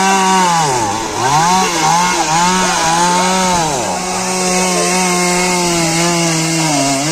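A small engine revving up and down again and again, then held at a steady pitch for about two and a half seconds before dropping near the end, over a steady hiss.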